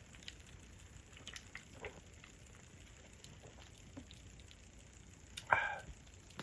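Campfire crackling softly, with scattered small pops and snaps from the burning wood. A brief louder sound cuts in about five and a half seconds in.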